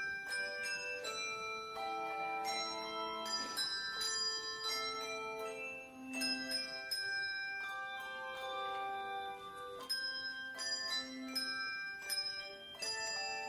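Handbell choir playing a piece: chords of struck handbells, each note ringing on after it is struck, with new strikes coming every fraction of a second.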